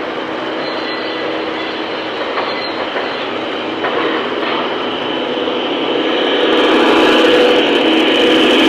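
Model trains running on layout track: a steady rolling rumble of wheels and motors, with a faint hum, growing louder from about six seconds in as a locomotive and string of freight cars pass close by.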